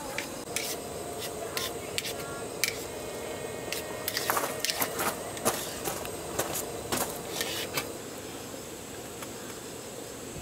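Scattered clinks and knocks of cookware and utensils being handled, thickest about four to five and a half seconds in.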